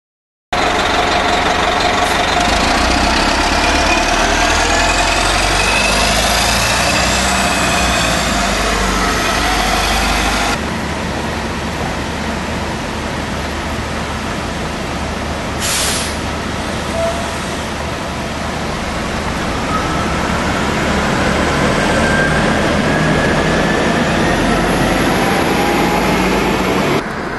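City bus engines running as buses pass on a rain-wet street, the engine pitch rising and falling as they pull away, over a steady hiss of tyres on wet pavement. A brief hiss comes just past halfway.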